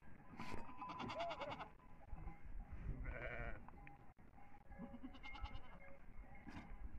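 A mixed flock of sheep and goats in a pen, bleating: several quavering bleats from different animals, one long one near the start and shorter ones spread through the rest.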